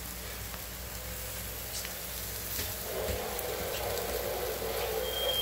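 Marinated meat sizzling on a wire grill over hot charcoal embers, a steady hiss with faint scattered crackles. A muffled lower sound swells from about three seconds in, and a brief high beep sounds near the end.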